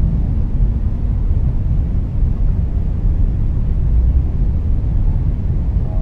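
Steady deep underwater rumble from a whale-sounds recording. A low whale call fades out just at the start, and a faint higher call begins near the end.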